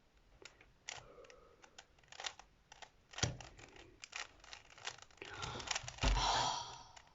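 Plastic Rubik's cube layers being turned by hand: scattered clicks and scratchy scraping, with a longer, louder rustle about five seconds in.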